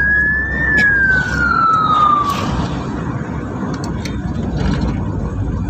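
Ambulance siren: one wail rising and then falling in pitch, cutting off about two and a half seconds in, over the low rumble of the moving vehicle.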